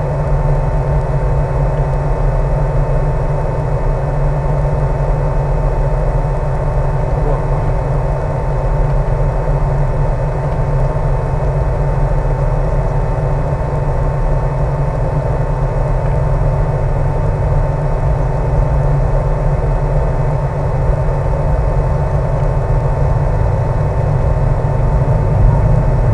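Electric motor and propeller of a HobbyZone Super Cub RC plane running steadily in flight, a constant whir with several steady tones over a heavy rush of wind.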